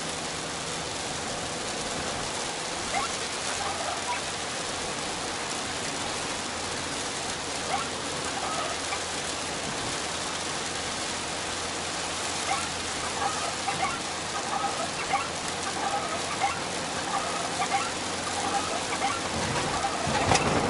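Rain heard from inside a moving minivan: an even hiss with scattered ticks of drops, over a faint, steady low hum from the vehicle.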